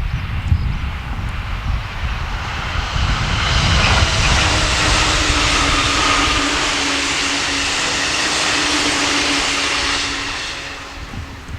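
A train passing at speed: a loud rushing roar swells from about three seconds in, holds steady with a constant hum beneath it, and fades after about ten seconds.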